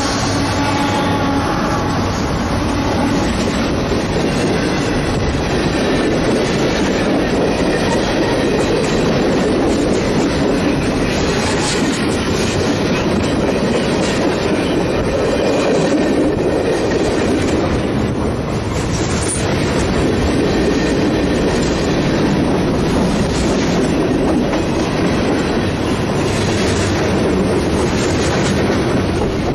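Freight train passing close by: a continuous rumble and wheels clacking over the rail joints as tank cars and covered hopper cars roll past. A held horn-like tone fades out about a second in.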